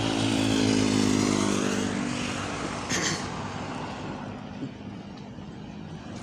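A motor vehicle passes close by: its engine hum is loudest about a second in, then fades away over the next few seconds. A short, sharp noise comes about three seconds in.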